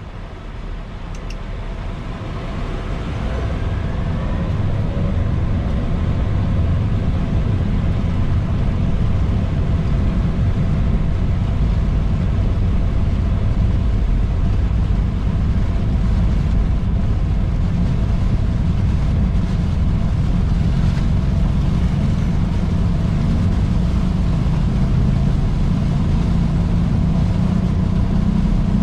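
Boeing 737 engines heard from inside the cockpit, spooling up to takeoff power with a rising whine over the first few seconds, then a loud, steady rumble through the takeoff roll.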